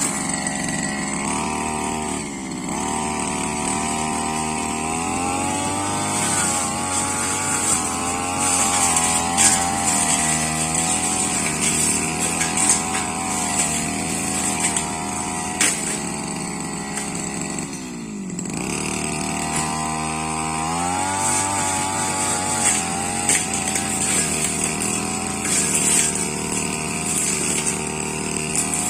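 Brush cutter engine running at high revs, its pitch rising and falling as the throttle is worked and the blade meets growth, with scattered sharp knocks. About eighteen seconds in the engine drops briefly and then revs back up.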